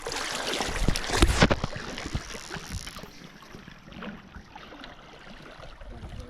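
River water rushing around a drift boat, loudest in the first second and a half with a few low thumps, then settling to a softer steady rush.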